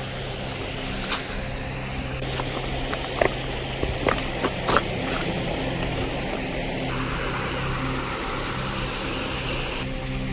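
Footsteps on loose creek-bed gravel and stones, with a few sharp stone clicks in the first half, over a steady low hum.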